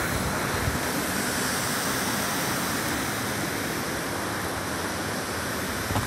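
Waterfall's water rushing steadily over rock.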